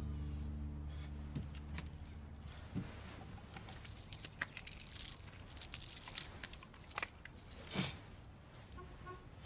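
Soft guitar music fading out in the first few seconds, then faint jingling and clicking of car keys being handled in an open car, with a louder short sound near the end.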